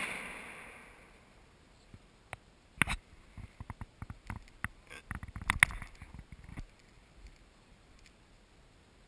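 The echo of a gunshot dying away over about a second. After it come scattered sharp clicks and knocks for a few seconds, the loudest about three seconds in.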